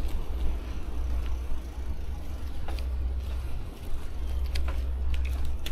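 Riding a bicycle: steady low wind rumble on the handlebar-mounted camera's microphone, with a few light clicks and rattles from the bike.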